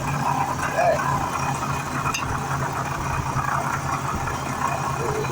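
Jeep Cherokee 4.0-litre inline-six running steadily with a loud racket from the front of the engine. The owner puts the racket down to a bad water pump.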